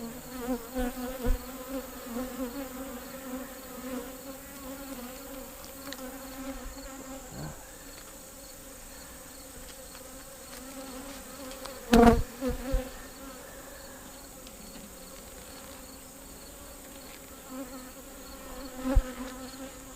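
Honeybees buzzing around an opened hive, a steady hum that runs throughout. A sharp knock about twelve seconds in and a smaller one near the end.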